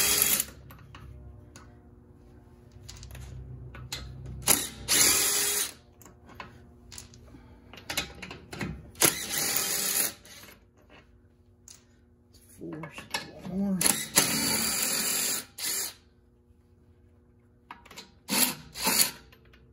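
Cordless electric impact wrench spinning the wheel lug bolts out of a car's hub in a series of short runs, a second or two each, several seconds apart. The bolts have already been broken loose.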